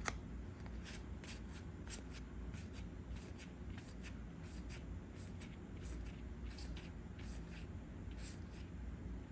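Trading cards being flipped through by hand, one after another: a run of short, light card snaps and slides at an uneven pace, about two or three a second.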